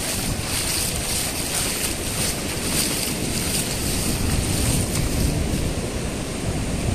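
Sea surf on a sandy beach: shallow waves washing up over the sand, with breakers farther out, in a steady wash. Wind rumbles on the microphone.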